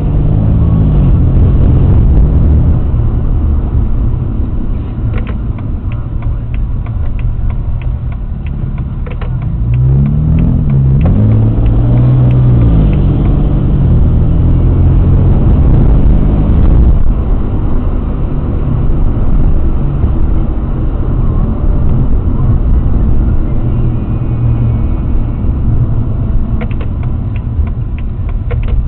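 Car driving at low speed, heard from inside the cabin: a steady low rumble of engine and road, with the engine pitch rising and falling as it accelerates near the start and again about ten seconds in. Runs of quick ticking come around five to nine seconds in and again near the end.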